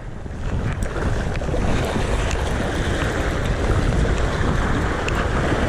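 Sea waves surging and splashing over a rock ledge, a steady rushing wash, with wind rumbling on the microphone.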